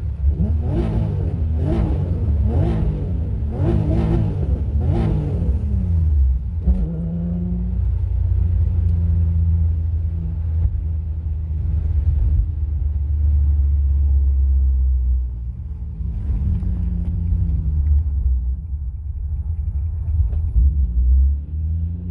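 Infiniti G35 coupe's 3.5-litre V6 exhaust through ISR resonated test pipes: five quick throttle blips about a second apart, then a steady low drone that rises and falls in pitch a few times.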